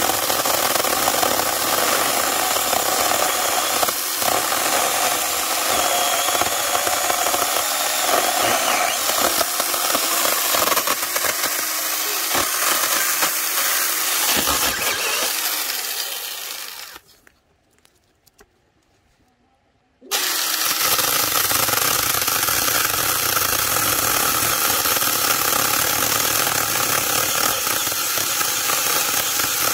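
AUSHEN 4-inch mini cordless electric chainsaw running and cutting into a dry log, a steady motor and chain noise. About halfway through it fades out and goes quiet for about three seconds, then starts again abruptly and cuts on.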